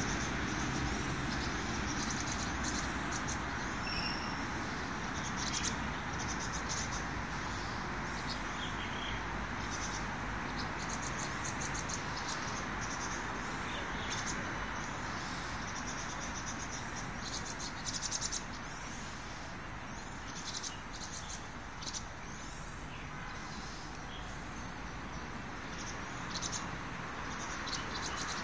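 Insects chirping in repeated short, high-pitched pulsed bursts over a steady outdoor background hum.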